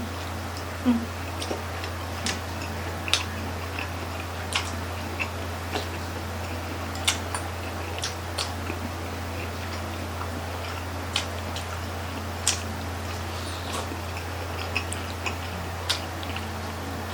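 Close-miked eating sounds of grilled chicken-intestine (isaw) barbecue skewers being chewed: irregular sharp clicks and smacks, about one or two a second, over a steady low hum.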